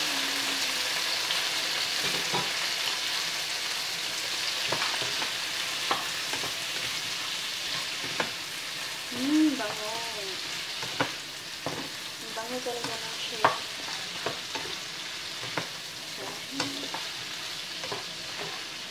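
Raw shrimp, onion and carrot frying in a pan: a steady sizzle that slowly eases off, with the spatula knocking and scraping against the pan as the food is stirred.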